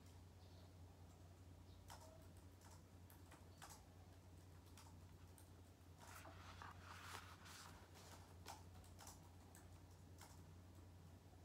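Near silence: a steady low hum with faint scattered clicks, and a soft rustle about six seconds in as the paperback book is handled.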